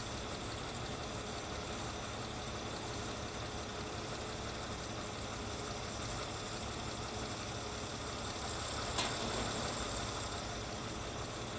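Mercedes-Benz C240 (W202) 2.6-litre V6 idling steadily, kept running while the automatic transmission fluid level is read on the dipstick. A single sharp click about nine seconds in.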